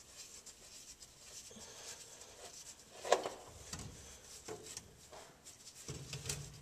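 Faint rubbing and a few light clicks of a spin-on oil filter being unscrewed by hand, the sharpest click about three seconds in.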